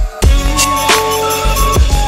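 Background music with a steady beat: deep drum hits and sharp percussive hits under held melodic notes.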